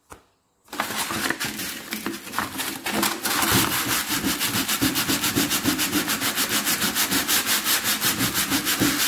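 Fine sandpaper rubbed by hand across a bedside table's painted wooden top. The sanding starts about a second in with uneven scratchy rubs, then settles into fast, even back-and-forth strokes, several a second.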